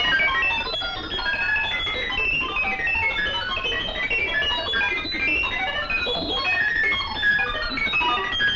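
Background film music: rapid runs of short keyboard or organ notes cascading up and down.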